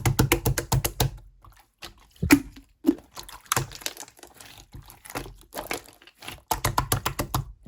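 Slime being pressed and squeezed by hand, making quick runs of crackly clicking pops, about eight to ten a second, at the start and again near the end, with a few single louder pops and softer squishes in between.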